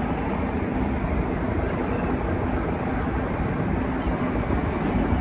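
Steady low engine drone under continuous street noise, without pauses or sudden events.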